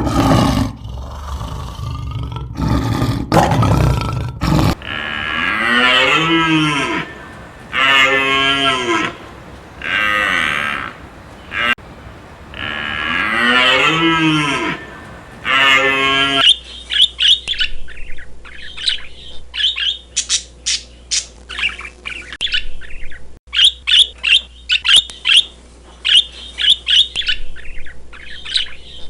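A loud harsh call in the first few seconds, then cattle mooing in several long, drawn-out calls. From just past halfway, small birds chirp rapidly in quick high peeps.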